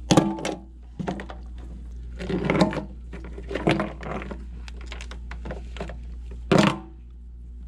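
Ice chunks and a plastic chicken waterer knocking and clattering against a stainless steel sink in several separate bursts, the loudest near the end, over a steady low hum.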